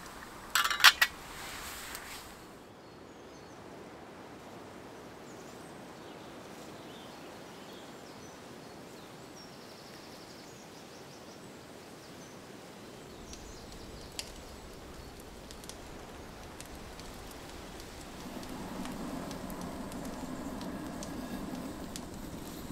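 Two sharp metallic clinks of camp cookware about a second in. Then quiet woodland ambience with a few faint ticks. In the last few seconds a small wood-burning camp stove's fire burns steadily under a kettle.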